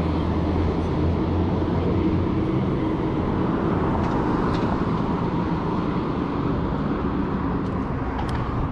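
Road traffic on a city street: a vehicle's engine hum, loudest at the start and fading as it moves off, over a steady traffic noise.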